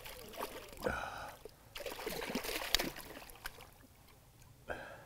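Water splashing and dripping at the side of a boat as a netted trout is handled in a landing net held in the lake, in irregular small splashes and trickles.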